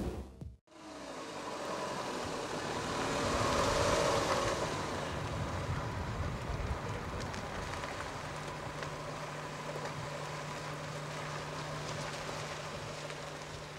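Car driving on a snowy road: tyre and engine noise builds to a peak about four seconds in, then eases into a steady low hum.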